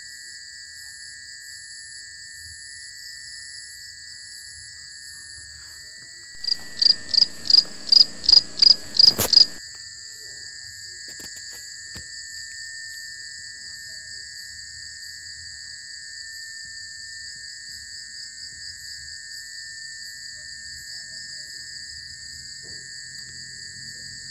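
Night insect chorus: crickets trilling steadily at several pitches. About six seconds in, an unseen animal close by gives a loud run of about nine pulsed call notes, roughly three a second, over about three seconds.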